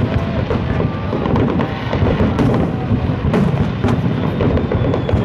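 Fireworks bursting in quick succession: a continuous rumble of deep booms with many sharper cracks layered over it.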